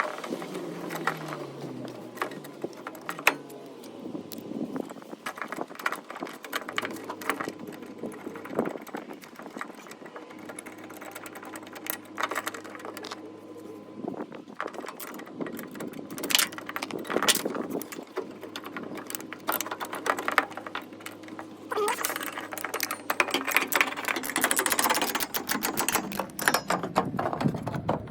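Hand tools working the bolts of a car door hinge: irregular metallic clicks, clanks and rattles, coming thickest near the end, over a faint steady hum.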